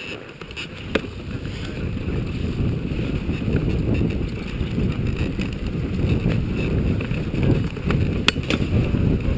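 Dog sled running over a packed snow trail: the runners' steady scraping rumble mixed with wind buffeting the chest-mounted camera's microphone. It grows louder over the first two seconds, with two sharp clicks about a second in and near the end.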